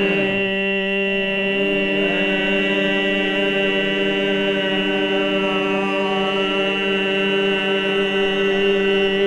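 A man's voice doing overtone throat singing: one long held drone on a steady low pitch with a high whistling overtone sounding above it. The overtones shift during the first couple of seconds, then settle and hold steady.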